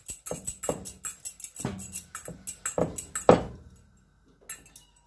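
Wooden rolling pin working dry, crumbly samosa dough on a wooden board: quick knocking and clattering strokes, about three or four a second, that stop a little over halfway through, followed by a couple of single clicks.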